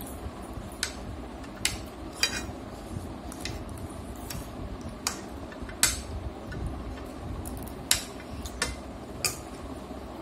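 Metal spoon clinking and scraping against a ceramic plate while eating: about ten sharp, irregular clicks. A steady low background hum runs underneath.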